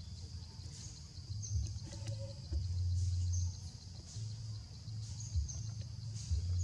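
Outdoor ambience: a steady high drone with short high chirps every second or so, over a low rumble that comes and goes.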